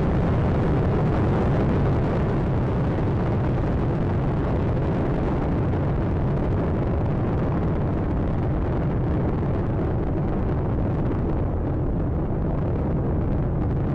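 Space Shuttle Atlantis climbing after liftoff, its solid rocket boosters and three main engines burning at full thrust: a loud, steady, low rumbling roar that does not let up.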